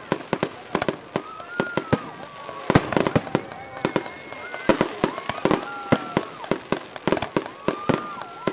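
Fireworks going off in rapid succession: sharp bangs and pops several a second throughout. Long wavering whistles run over the bangs from about a second in.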